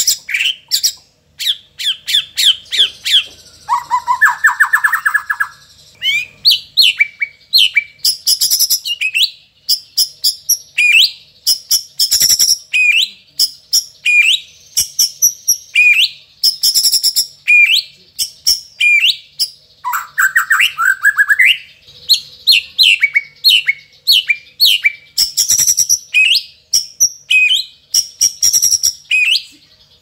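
Caged white-rumped shama singing a fast, varied song of sharp whistles, downward-sweeping notes and clicks. A rapid trill comes twice, about four seconds in and again near twenty seconds.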